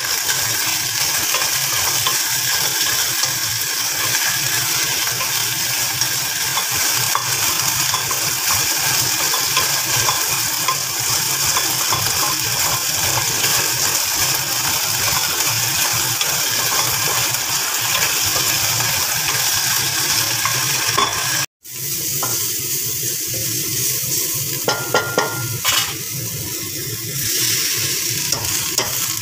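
Sliced pork frying in oil in a stone-coated pan: a steady sizzle while it is stirred with a wooden spatula. After a sudden break about three-quarters of the way through comes a softer sizzle, with a few light utensil knocks, as shredded cabbage cooks in a wok.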